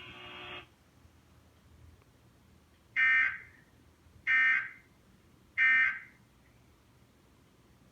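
NOAA weather radio sending three short, identical bursts of EAS/SAME digital data tones about a second and a quarter apart: the End-of-Message code that closes the flash flood warning broadcast.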